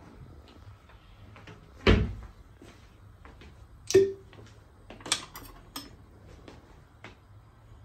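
Kitchen items being handled and set down: a dull thump about two seconds in, a sharp clink with a short ring about four seconds in, then several lighter clicks and ticks.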